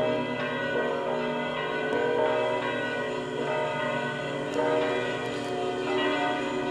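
Church bells ringing together, many overlapping tones that sound on and hang in the air.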